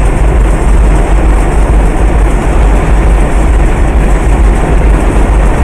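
Steady road and engine noise of a car driving at highway speed, heard inside the cabin: a loud, deep rumble with an even hiss above it.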